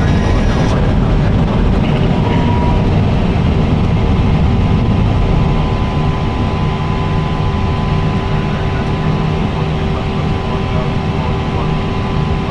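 Steady engine and airflow noise inside an Airbus A320 cockpit during takeoff or climb: a dense low rumble with a steady hum on top. It eases slightly about halfway through.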